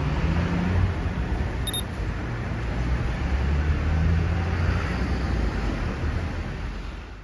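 Steady background noise with a low rumble, fading out at the end.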